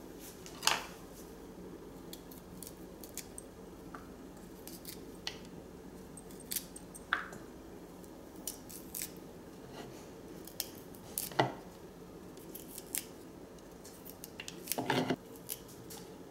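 Small kitchen knife peeling the skin off raw broccoli stems and trimming florets over a plastic bowl: scattered crisp snips and scrapes, with a few louder clicks several seconds apart.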